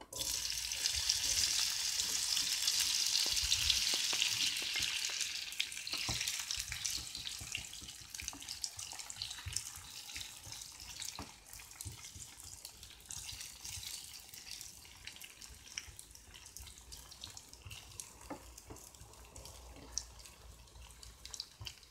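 Diced raw potatoes going into hot vegetable oil in a frying pan: a loud sizzle that begins suddenly and eases after about five seconds into a quieter, steady frying. A wooden spoon stirring the potatoes adds light clicks and scrapes against the pan.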